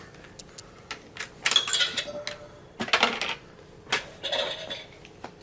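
Toy vending machine dispensing: a few light clicks, then about four clattering knocks as items drop out one after another.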